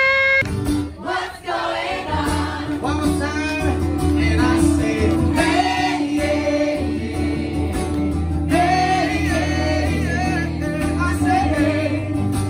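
A live acoustic duo performing a song: a woman and a man singing into microphones, accompanied by acoustic guitar and played through PA speakers.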